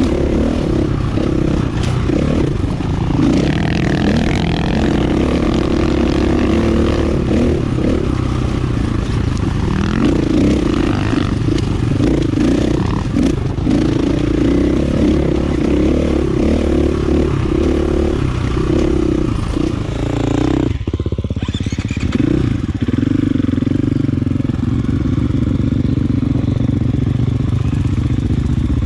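Dirt bike engine, a 2019 KTM 450 EXC's single-cylinder four-stroke, running steadily under way on the trail. About two-thirds of the way through it drops off briefly, then picks back up.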